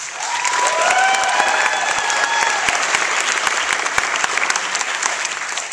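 Audience applauding, a dense steady clapping, with a few drawn-out cheers over it in the first two seconds or so.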